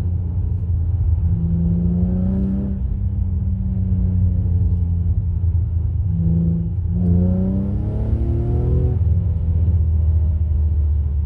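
Infiniti G35 coupe's 3.5-litre V6 exhaust through ISR test pipes in place of the resonators, running under load in second gear. It pulls up in pitch twice, briefly about two seconds in and longer about seven seconds in, over a steady drone.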